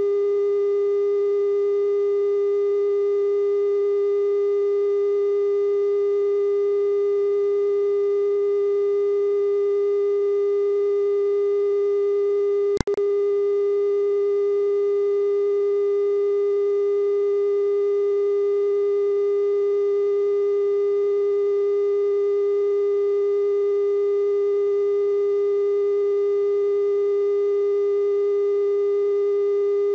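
Steady 420 Hz television test tone accompanying the EIA color bars after a station's sign-off. A single brief click, with the tone dropping out for an instant, comes about 13 seconds in.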